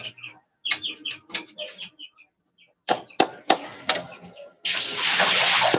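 A piece is rubbed by hand over a punched sheet-metal grater in short scraping strokes, about three a second. Near the end comes one longer, louder rasping stroke lasting about a second.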